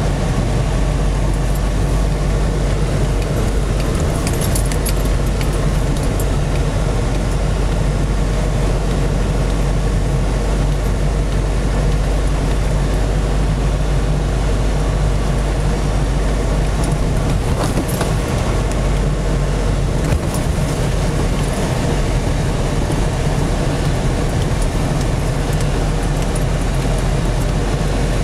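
Steady car cabin noise from inside a car driving on a snow-covered road: a constant low engine and tyre drone, with a few light rattles.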